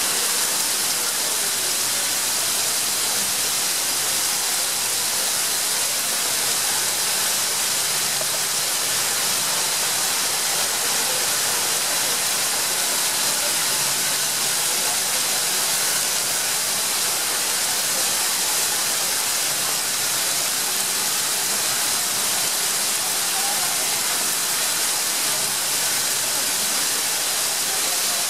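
Heavy rain pouring steadily onto a paved street, an even, unbroken downpour.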